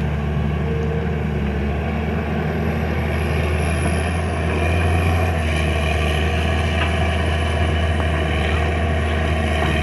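Heavy diesel engines of earthmoving machinery running steadily in a low drone, getting a little louder about four and a half seconds in.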